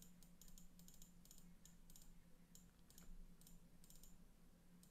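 Faint typing on a computer keyboard: irregular key clicks, several a second, over a steady low hum.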